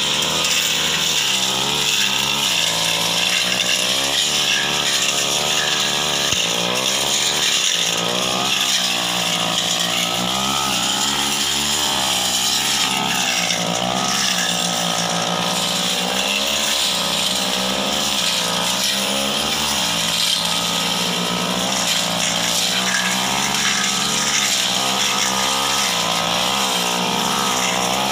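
Backpack brush cutter engine running hard without a break, its pitch rising and falling as the blade cuts through dense ferns and scrub.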